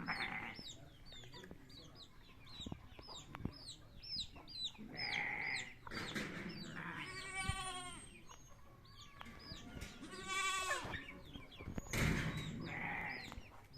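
Chickens peeping and clucking continually in short falling chirps, with two long wavering goat bleats in the middle.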